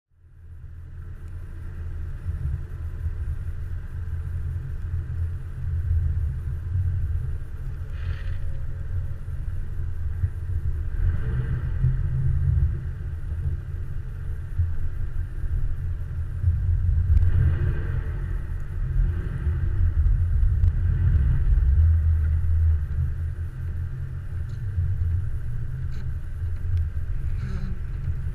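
Vehicle driving along a snow-packed road: a steady low rumble of engine and tyres that fades in over the first second, with a few brief hissing swishes along the way.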